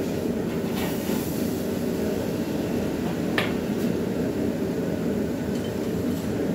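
A hot steel offcut quenched in a pail of water, giving a brief hiss about a second in, over a steady low roar. A single light clink follows about three and a half seconds in.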